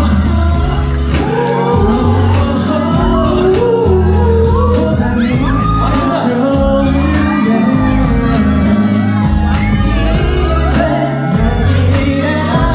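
Live pop music played loud in a concert hall: a male vocal group singing over a heavy, steadily pulsing bass beat, with audience shouts and whoops mixed in.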